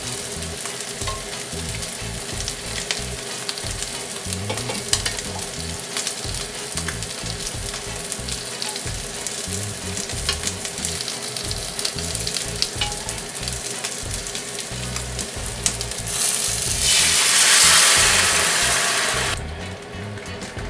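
Sliced onions, green onion and garlic with chili-oil miso sizzling steadily in a frying pan, with scattered small clicks. About sixteen seconds in, a louder rush of sizzling for about three seconds as water is poured into the hot pan; it then stops suddenly and settles to a quieter bubbling.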